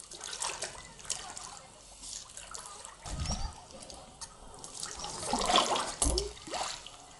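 Lake water splashing and dripping against a stand-up paddleboard as a person shifts her weight on it, irregular and loudest a little past halfway, with a couple of brief low thuds.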